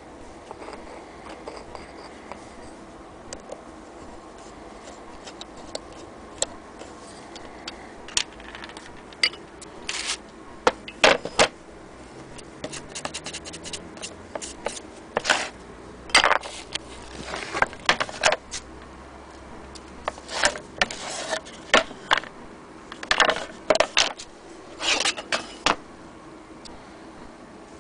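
Handling noises from an antique Willcox & Gibbs sewing machine's wooden base and cast-iron hand-crank wheel being moved about and set down on a hard surface. Irregular scrapes, knocks and clicks come mostly in clusters in the second half.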